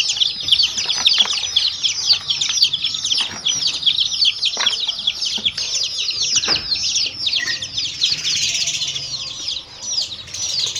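A group of baby chicks peeping continuously, many high, downward-falling chirps overlapping one another without a break.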